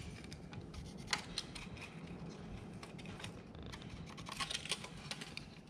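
Faint scattered light clicks and scratches of a carpenter's pencil marking wooden boards against a tape measure, with a small cluster of ticks in the second half.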